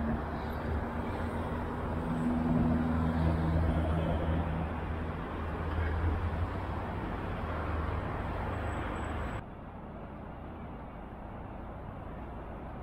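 Outdoor city street ambience with a nearby vehicle engine running as a steady low hum. About nine seconds in, the sound cuts abruptly to quieter, duller street ambience.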